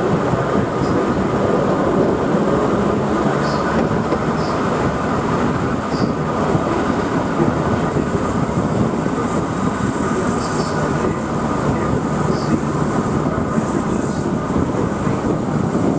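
A QR 2000 class diesel rail motor running along the track: a steady mix of engine and wheel-on-rail noise, with faint light ticks now and then.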